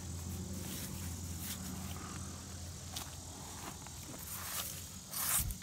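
Scattered soft rustles and brushing sounds of a hand moving among artificial flowers at a grave marker, the loudest a short scrape with a thump about five seconds in, over a steady low hum.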